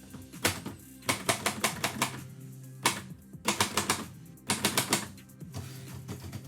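Typewriter keys struck in quick bursts of sharp clacks, about five runs of keystrokes with short pauses between, over background music with steady low notes.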